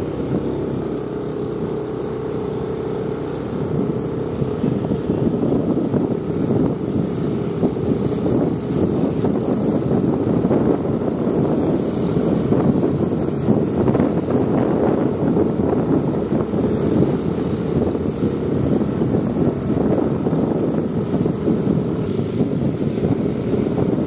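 Motorcycle engine running on the move, heard from the bike itself, mixed with a rushing noise of wind and road; the sound becomes rougher and louder about four seconds in.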